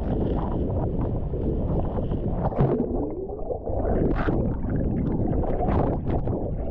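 A waterfall plunging: a heavy, low rush of falling water, with gusts buffeting the microphone.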